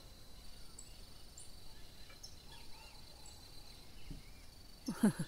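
Quiet rural outdoor ambience: a steady faint high insect trill with scattered small bird chirps. About five seconds in comes one brief louder call that falls quickly in pitch.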